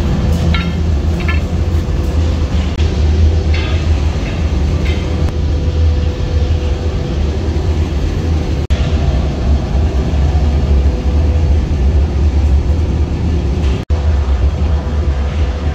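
Steady low rumble of running workshop machinery with a faint constant hum, and a few light metallic clinks of flat steel spring bars in the first five seconds. The sound cuts out briefly twice, about nine and fourteen seconds in.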